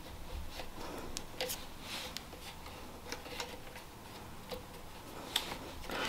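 Faint, irregular small clicks and handling noise as wires and their terminals are worked onto an air compressor's pressure switch.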